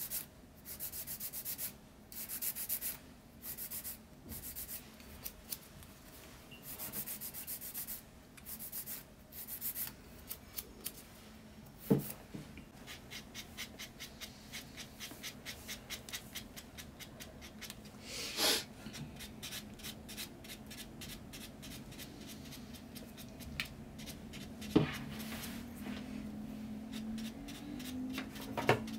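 Electric nail drill running with a faint steady hum while its bit grinds over fingernails. It works in short scraping passes at first, then in a quick run of light ticking strokes, with a few sharp clicks.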